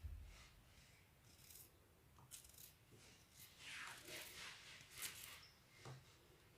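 Near silence with a few faint clicks and soft rustles.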